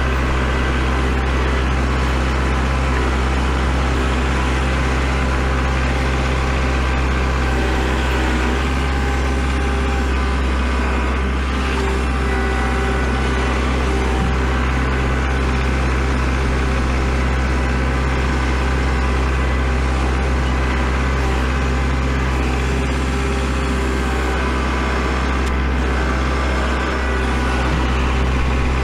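Kubota L4701 tractor's diesel engine running steadily while it pushes snow, with a deep, even drone whose note shifts slightly about eight seconds in.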